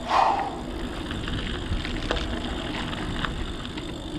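Mountain bike riding: a steady low rolling rumble from the tyres, with scattered small knocks and rattles from the bike and a short louder rasp right at the start.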